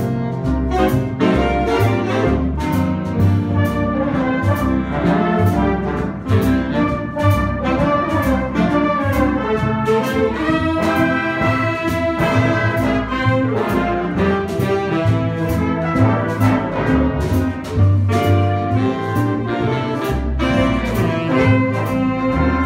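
Big band jazz ensemble playing a swing chart: trumpets and trombones carrying the melody over bass and drums, with cymbal strokes keeping a steady beat.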